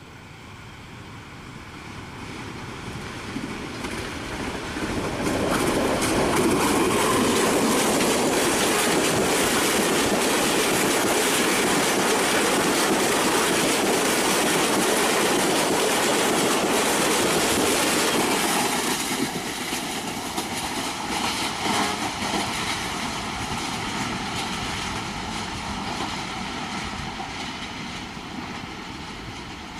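Pakistan Railways ZCU-20 diesel-electric locomotive and its passenger coaches approaching and passing at speed, with a steady clickety-clack of wheels over rail joints. The sound builds over the first six seconds, stays loud while the coaches pass close by, and drops off about nineteen seconds in as the train moves away.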